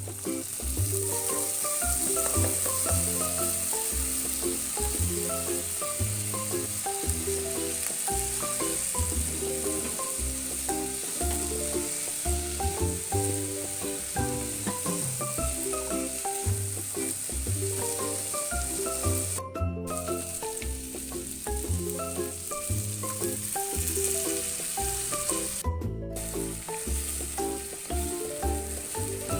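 Food sizzling in hot oil in a frying pan, a steady hiss, under background music with a bass line. Everything drops out briefly twice, about two-thirds of the way through and again near the end.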